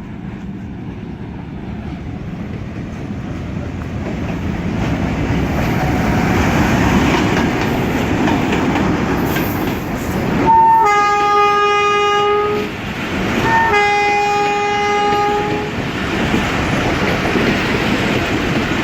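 HBU-20 diesel locomotive hauling a passenger train in on arrival, its rumble growing louder. About halfway through it sounds its horn twice, each blast about two seconds long and opening with a brief higher note before settling on a steady chord. The train's rumble and clatter on the rails go on after the horn.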